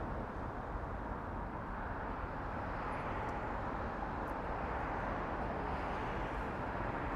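Steady hum of distant road traffic with no single vehicle standing out.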